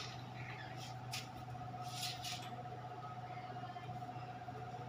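Faint scrapes and light clicks of a hand shifting and pressing a large floor tile on its cement mortar bed, a few times in the first half. Under it, a steady low hum with a thin steady tone.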